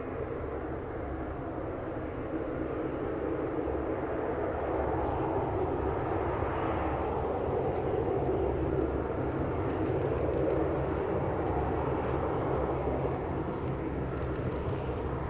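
Twin-turboprop De Havilland Canada Dash 8-400 on landing: steady engine and propeller noise that swells over the middle of the stretch and then eases off.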